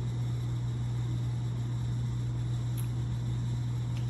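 A steady low hum over a faint even hiss, with two faint clicks near the end.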